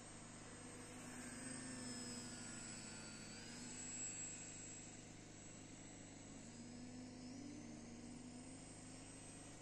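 Two radio-controlled EPP foam Hawker Hurricane model planes flying, their electric motors and propellers giving a faint whine that slowly rises and falls in pitch as they pass.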